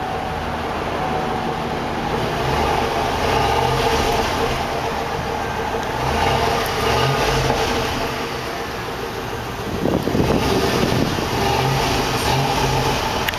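2003 Chevrolet Avalanche's 5.3-litre Vortec V8 heard at the tailpipe, running and revved up a few times, about three, six and ten seconds in.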